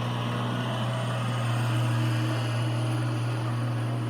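A steady low mechanical hum, with fainter higher tones above it.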